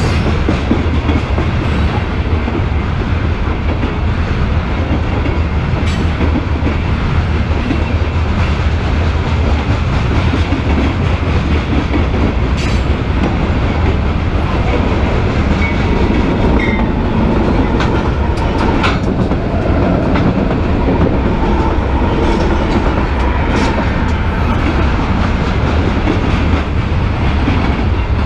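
Freight train of covered hopper cars rolling past at speed: a steady heavy rumble of steel wheels on rail, with a few scattered clicks and clanks.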